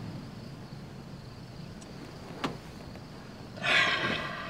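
A woman's short tearful cry, a quavering pitched sob that starts about three and a half seconds in and fades within half a second, preceded by a single faint click.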